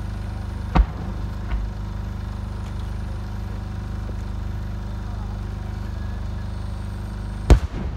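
A ten-inch (shakudama) Japanese aerial firework shell, a four-layer-core changing chrysanthemum with a rising tail. A sharp bang comes about a second in and a smaller pop soon after. Near the end comes one loud boom, the shell's burst arriving well after its flash, all over a steady low hum.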